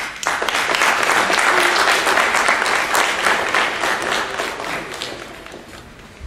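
Audience applauding, starting just after the beginning and fading out over the last couple of seconds.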